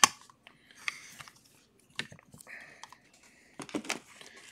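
Hard plastic graded-card cases clacking as they are handled and set down, with a padded bubble mailer rustling as it is picked up. A sharp clack right at the start is the loudest sound, with further clicks about two seconds in and near the end.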